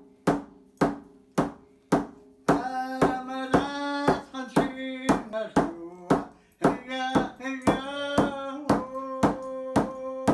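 Hide hand drum struck with a beater in a steady beat of about two strokes a second, each stroke ringing on a low tone. About two and a half seconds in, a man starts singing over the drum.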